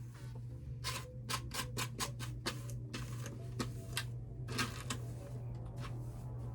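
Human-hair wig being brushed out in quick, irregular scratchy strokes, about two or three a second, over a steady low hum.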